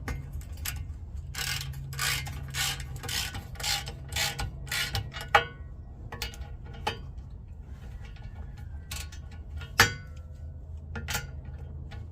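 Socket ratchet wrench clicking in quick strokes, about three a second, as it runs nylon-insert lock nuts down onto the skid plate bolts. A few separate sharp metallic clicks follow in the second half.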